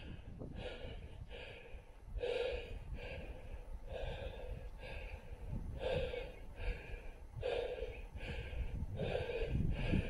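A person breathing in and out close to the microphone in a steady rhythm, a breath about every second and a half.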